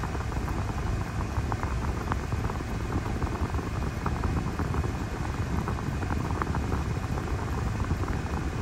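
Pickup truck's air-conditioning blower pushing air out of the dash vent, over the 350 V8 idling: a steady rush of air on a low engine rumble. The air conditioning is working, the vent air cooling down with the truck standing still.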